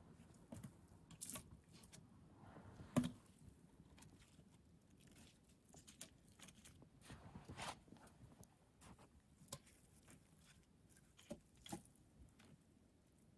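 Split firewood logs being set down and stacked between wooden stakes: scattered wooden knocks and light scrapes, with one sharp knock about three seconds in.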